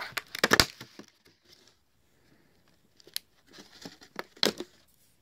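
Clear plastic blister pack holding laptop RAM modules crackling and snapping as it is pried open by hand, in two spells of crinkling with a pause of about two seconds between them.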